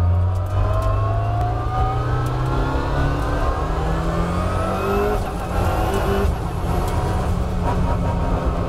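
Race car engine heard from inside the cabin, accelerating hard up through the gears: the revs climb steadily, drop at two quick upshifts about five and six seconds in, then climb again.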